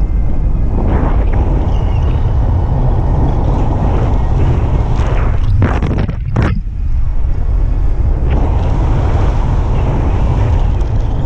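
Rushing airflow over the microphone of a camera carried in flight under a speed wing: a steady, loud wind noise, heaviest in the lows. It drops briefly about six seconds in.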